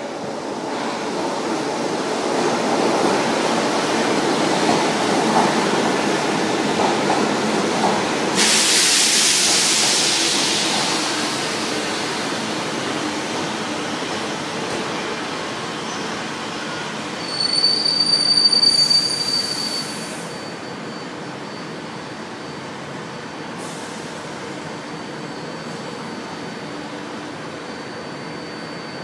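São Paulo Metro Line 1 train pulling into the station: a rumble of wheels on rail that builds over the first several seconds, then a loud hiss. A high-pitched squeal comes for a couple of seconds about two-thirds of the way in as the train slows to a stop. After that the standing train runs steadily with a faint high whine.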